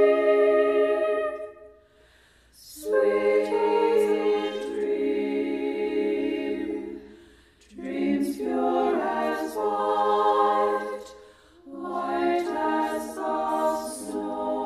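Four women's voices singing a slow song a cappella in close harmony, each part recorded separately and layered together. Held chords are broken by three short breath pauses, about two, seven and a half and eleven and a half seconds in.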